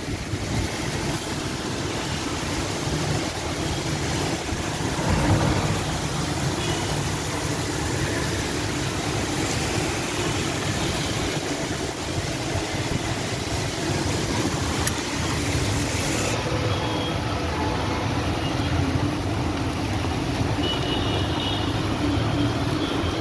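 Heavy rain falling steadily, with cars passing on a wet road.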